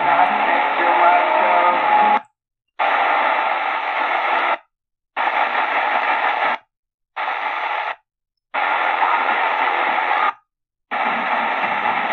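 Sony ICF-SW7600GR portable radio's AM reception while tuning up the medium-wave band step by step: weak stations' voices and music under static and hiss, cut by five brief silences as the radio mutes between frequency steps.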